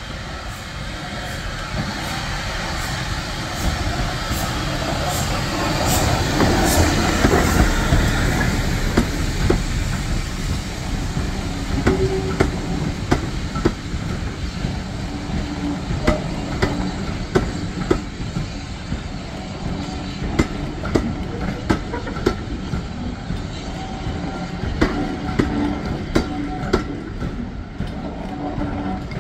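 Steam train passing close by: a saddle-tank steam locomotive runs past, loudest about seven seconds in, and its coaches follow with a steady rumble and repeated sharp clicks of wheels over rail joints.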